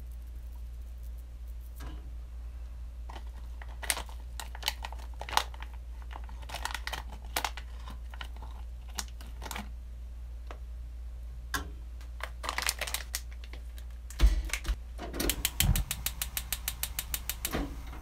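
Metal spoons clicking and scraping against each other and a non-stick frying pan as a lump of miso is worked off a spoon into the seasoning liquid. Scattered clicks at first, then a quick run of light taps near the end, over a steady low hum.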